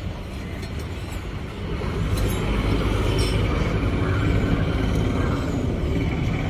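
A motor vehicle's engine rumbling steadily, growing louder about two seconds in, with a few faint clicks over it.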